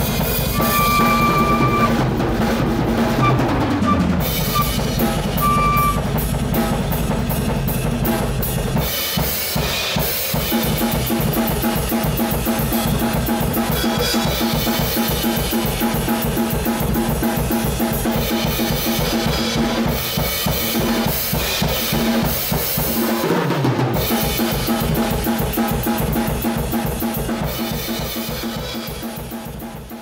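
Instrumental music: a drum kit playing a busy, steady beat over a low sustained drone, fading out near the end.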